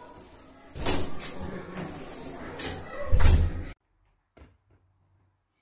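A run of knocks and bangs, like furniture and a door being handled, loudest a little after three seconds in, then cutting off abruptly into near silence with only a couple of faint clicks.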